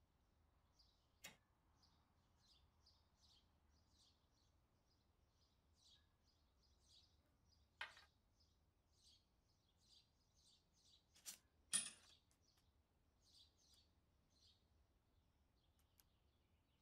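Near silence, with faint bird chirping throughout and five sharp small clicks of tools and brass lighter parts being handled. The loudest is a pair of clicks about two-thirds of the way in.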